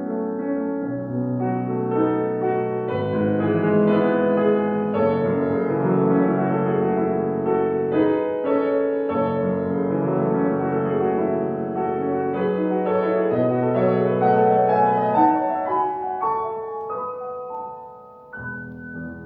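Classical chamber music played live, with piano prominent. It briefly drops quiet about 18 seconds in, then resumes.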